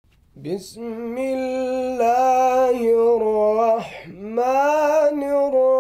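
A man chanting Quran recitation in the melodic tajweed style. He starts about half a second in with a rising note, then holds long ornamented notes with a wavering pitch, pausing for a breath about four seconds in before going on.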